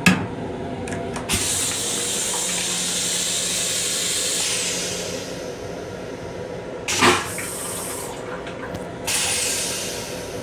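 Train toilet flushing: a clack, then water spraying into the stainless-steel bowl for about four seconds over a steady pump hum. A loud knock comes about seven seconds in, then a second short spray near the end.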